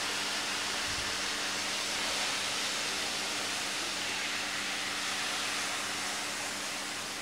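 Beef stock simmering and sizzling in a hot frying pan over browned onions, a steady hiss. The stock has just been poured in and the heat turned down.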